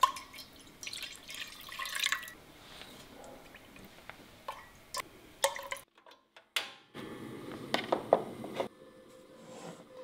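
Liquid seasonings poured into a cooking pot: soy sauce splashing in from a stainless measuring cup for about two seconds. Then light clinks of metal utensils, and later more liquid poured in with a few sharp clinks.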